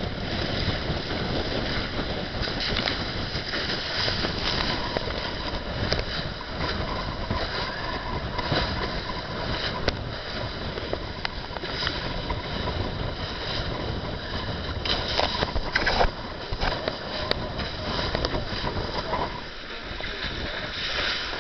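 Steady rush of wind and water on an F31 trimaran sailing at 17 to 20 knots in about 30 knots of breeze, with irregular splashes and slaps of spray.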